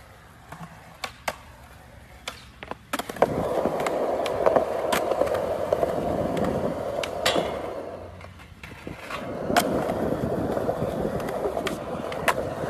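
Skateboard wheels rolling on a concrete skatepark surface, with sharp clacks of the board. The first few seconds are quieter, with only scattered clacks. Then a loud, steady rolling sets in about three seconds in, eases briefly around eight seconds, and picks up again.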